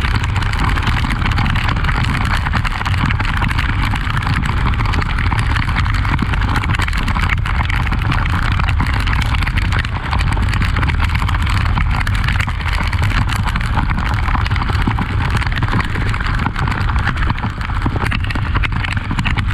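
Honda XRE 300 motorcycle on the move, a steady rush of engine and ride noise with wind on the microphone, dipping briefly about halfway through.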